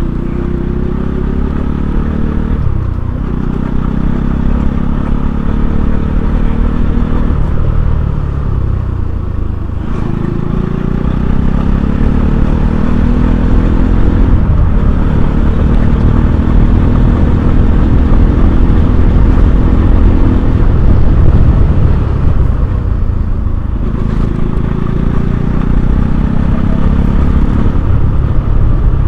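Bajaj Pulsar NS200's single-cylinder engine running while the bike is ridden, its pitch rising and dropping several times as it speeds up and eases off, over a steady low rumble.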